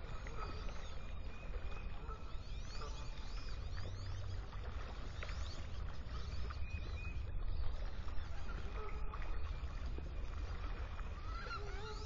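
Scattered faint calls of ducks and other birds on a wetland pond, many short chirps and whistles, over a steady low rumble.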